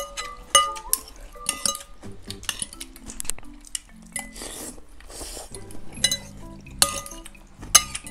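Metal forks and spoons clinking and scraping against ceramic soup bowls, a series of sharp ringing clinks every second or so, with the loudest near the start and near the end. A soft noodle slurp comes around the middle.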